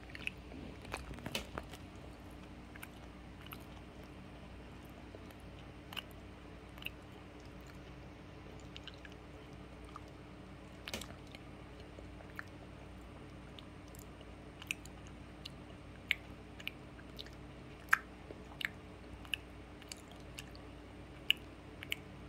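Small dog chewing and licking, with scattered soft wet smacks and clicks, a few of them sharper, over a steady low hum.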